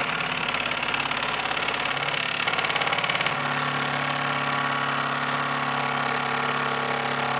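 Makita LXT cordless impact driver driving a 3-inch screw into heavy rough-cut wood, its hammer and anvil impacting in a loud, rapid, continuous chatter. The chatter is the impact mechanism striking rotationally as the screw meets resistance, sinking the screw slowly without the bit skipping.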